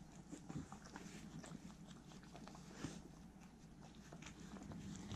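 Two Welsh corgis eating melon from a plate: faint chewing and licking with small scattered clicks, one a little louder about three seconds in.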